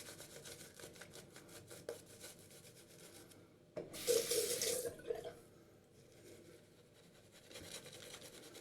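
Water from a tap running briefly into a sink, starting about four seconds in and lasting a little over a second; before it, faint scratchy rasping strokes.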